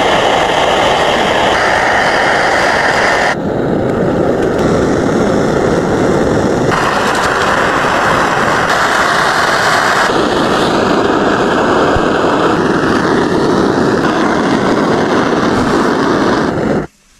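Food cooking over a stove: a steady, loud hissing with sizzling. It changes in tone abruptly about every three seconds and cuts off near the end.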